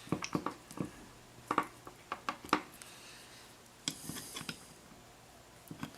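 Irregular small clicks and taps of a power window motor's drive gear and its plastic cushion pieces being handled and worked onto the shaft, most of them in the first couple of seconds and a few more later.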